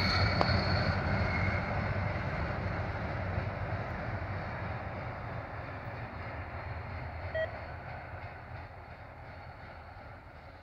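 CSX diesel locomotives running and moving away along the track: engine rumble and wheel-on-rail noise fading steadily. A brief high chirp comes about seven seconds in.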